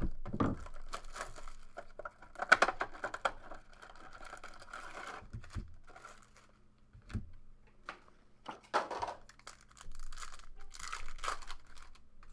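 Plastic shrink-wrap being torn off a trading-card hobby box and crumpled, in a run of irregular crinkling and ripping noises, the loudest rip about two and a half seconds in. Later the cardboard box is opened and card packs handled, with more rustling.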